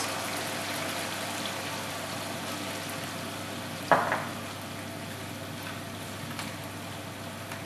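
Pork cubes in tomato sauce sizzling steadily in a frying pan, with a single sharp knock about four seconds in.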